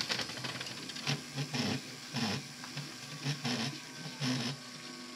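Small electric motor of a model diesel shunter locomotive whirring steadily as it runs along the track. About nine short, uneven louder bursts come over it.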